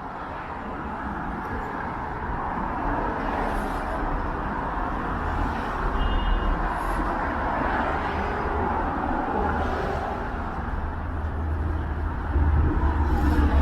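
Downtown street traffic: cars and other vehicles passing in a steady wash of road noise, with a low rumble swelling near the end as a vehicle goes by close.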